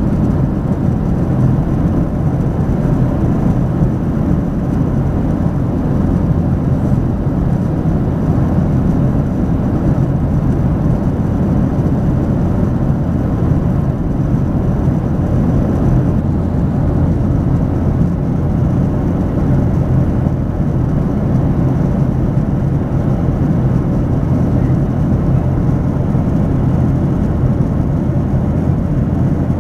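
Steady, deep cabin drone of a Boeing 737-800 in flight, heard from a window seat: the noise of its CFM56-7B turbofan engines and of air rushing past the fuselage.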